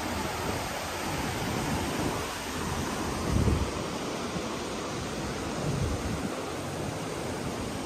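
Steady rush of river water pouring over a shallow weir, with wind gusting and buffeting on the microphone, the strongest gust about three and a half seconds in.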